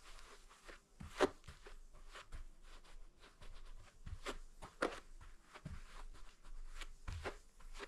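Faint, irregular knocks and rustles, with sharper clicks about a second in, around four to five seconds in, and again near the end.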